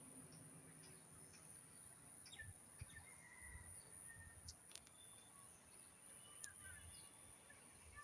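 Near silence: faint outdoor ambience with a few scattered bird chirps, a steady faint high hum and two light clicks, about halfway and near the end.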